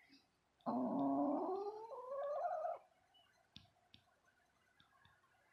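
Broody hen growling on her nest: one drawn-out call that rises in pitch and lasts about two seconds, the warning of a hen guarding the eggs beneath her.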